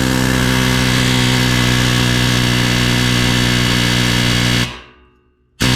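Power impact wrench running steadily for about five seconds, driving a ball joint separator to press the control arm's ball joint out. It stops, then gives a short second burst near the end.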